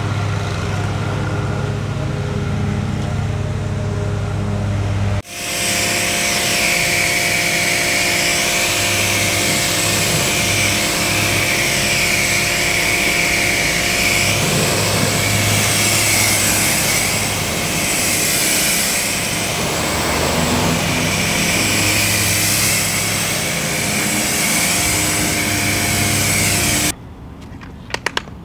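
Pressure washer running with a steady low hum. After about five seconds it gives way to the loud, steady hiss of its spray rinsing foam off a car's paint. The spray stops shortly before the end, and a few sharp clicks follow.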